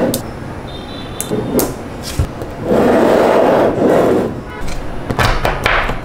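Small magnetic balls clicking and clacking as they are snapped together, with sharp clicks near the start, about a second and a half in, and in a quick cluster near the end. About three seconds in, a grainy rushing noise lasts about a second and a half.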